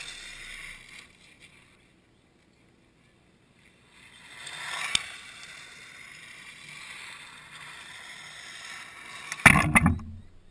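Radio-controlled car sliding over loose gravel, its tyres spraying stones with a rushing hiss that drops out briefly and returns about four seconds in, with a sharp click near the middle. Near the end a sudden loud burst with a low rumble as the car runs right up against the camera.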